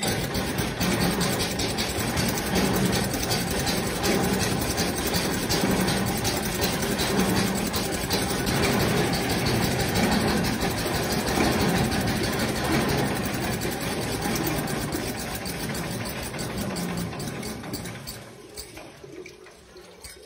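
Old air-cooled engine of a home-built rat-rod tractor running with a rapid, even beat, fading away over the last couple of seconds.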